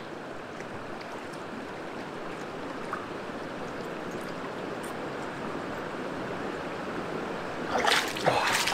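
Shallow, stony river flowing steadily. Near the end come a few splashing footsteps as someone wades out of the shallows onto the gravel.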